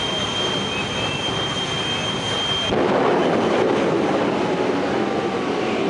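Jet truck's turbine engine running with a steady high whine. About two and a half seconds in, the whine gives way to a louder rushing blast as the afterburner lights for the run.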